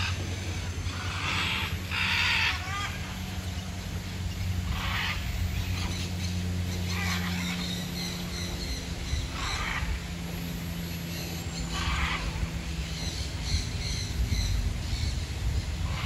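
Mixed waterbirds in a pond aviary giving short calls every two to three seconds, over a steady low hum.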